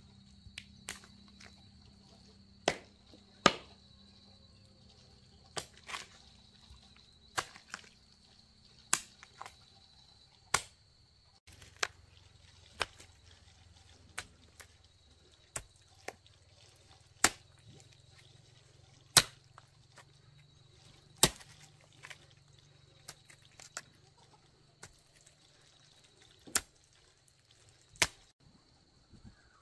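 Hand hoe chopping into red clay soil, one sharp strike every one to two seconds.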